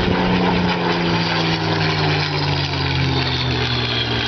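Propeller aircraft flying past, its engine drone sliding steadily down in pitch as it goes by.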